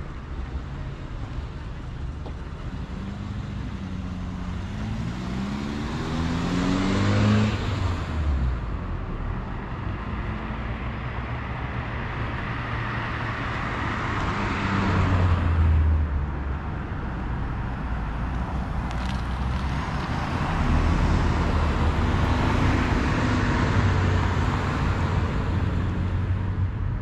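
Cars passing on a street, the road noise swelling and fading three times, with an engine note shifting in pitch as the first goes by.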